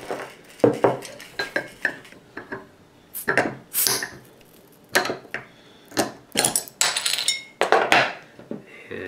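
Metal bottle opener working the crown cap off a glass beer bottle: a string of sharp metal-on-metal and metal-on-glass clinks and scrapes as the cap is pried off.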